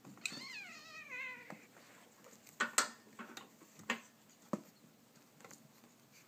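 Siamese cat letting out one long wavering yowl that falls in pitch, in the middle of a play fight with another cat. It is followed by several sharp scuffling knocks as the two cats wrestle.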